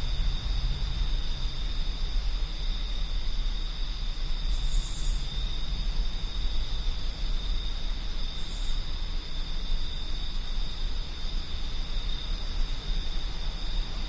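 Wind blowing with a low, steady rumble, over the continuous high trilling of crickets. Two short, higher insect buzzes come about four and a half and eight and a half seconds in.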